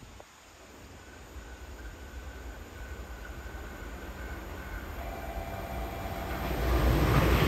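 JR Kyushu 787 series electric limited express train approaching at speed to pass through the station, its rumble growing steadily louder. A thin steady whine rides over it, dropping to a lower tone about five seconds in as the train nears.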